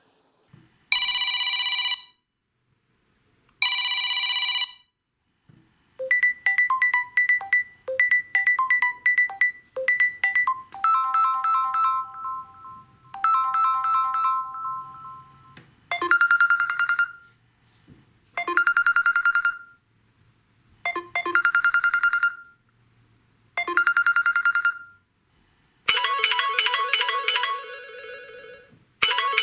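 Samsung Galaxy A71 stock ringtones playing one after another. First a short electronic ring sounds twice. About six seconds in, a melody of short notes begins, then a chime repeats about every two and a half seconds, and near the end a busier tune starts.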